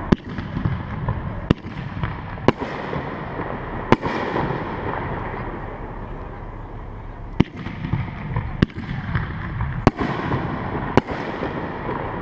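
Aerial firework shells bursting overhead: about eight sharp bangs at uneven intervals, roughly one every one to three seconds, with a pause of about three seconds in the middle, over a constant low noisy rumble.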